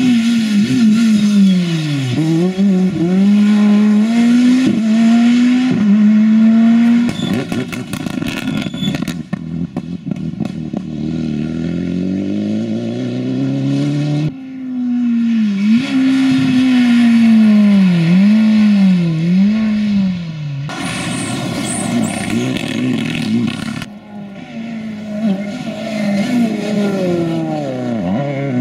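Rally car engines, among them a Škoda Fabia and a Ford Fiesta, driven flat out. Each engine revs up and falls in quick dips at every gear change, and the sound cuts from one car to the next several times.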